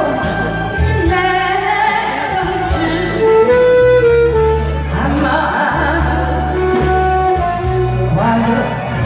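A singer performing a song live over a recorded backing track, with held sung notes above a bass line and a steady beat.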